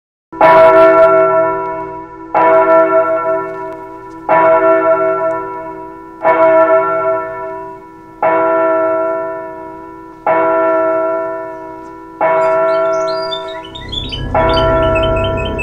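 A single church bell tolling slowly, eight strokes about two seconds apart, each ringing out and fading: a funeral knell. Faint bird chirps and a low rumble come in near the end.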